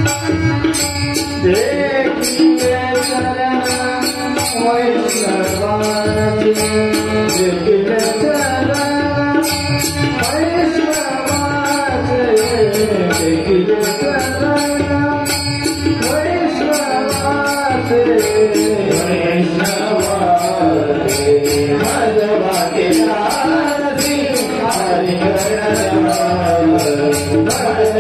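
Marathi devotional bhajan: a man sings a gliding, ornamented melody over a drum, while jingling hand cymbals keep a steady beat.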